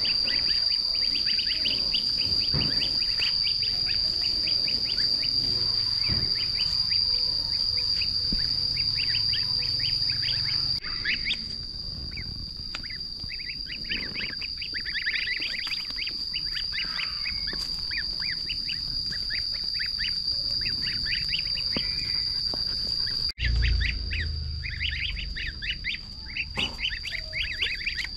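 Ducklings peeping in fast runs of short calls, over a steady high-pitched whine.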